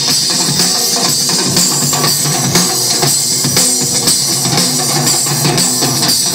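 A live band playing: a drum kit keeps a steady beat under guitar.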